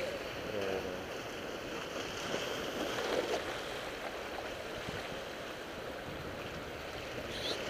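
Steady rushing outdoor noise of wind and waterfront surf, picked up by a shoulder-mounted action camera's microphone.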